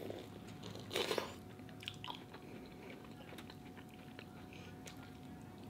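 A person eating close to the microphone from a seafood boil: one loud bite about a second in, then quiet chewing with a few small clicks.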